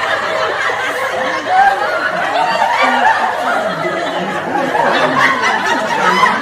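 People laughing and chuckling, with overlapping chatter from several voices.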